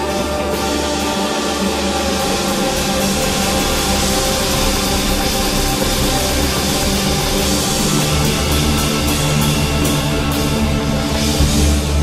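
Instrumental post-rock music played loud and dense by a full band: a wall of sustained guitars over a drum kit hitting steadily.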